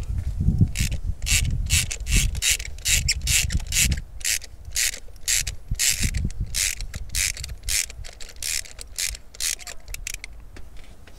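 Socket ratchet with a 16 mm deep spark-plug socket clicking in quick back-and-forth strokes, about two a second, as the spark plugs are loosened; the clicking stops near the end.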